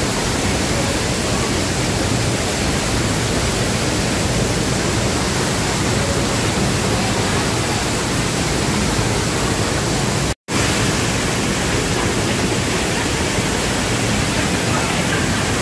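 Waterfall at Ambon-Ambon Falls rushing, a loud, steady, even wash of water noise, broken by a split-second gap about ten seconds in.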